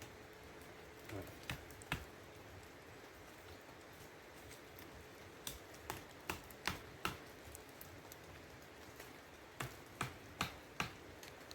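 Light, sharp clicks and taps of sticks being handled and tied with string onto a rustic stick fence, some coming in quick runs of about two or three a second.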